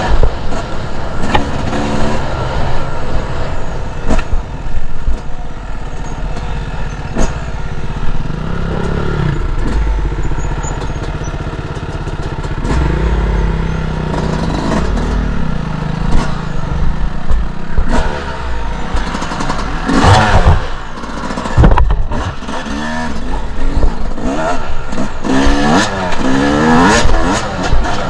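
Two-stroke enduro dirt bike riding off-road, the engine revving up and dropping back again and again as the throttle is worked, with knocks and clatter from the bike over rough ground.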